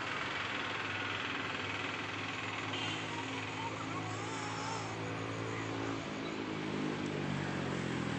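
A motor vehicle's engine running close by, its pitch climbing in the second half, over a steady outdoor hiss.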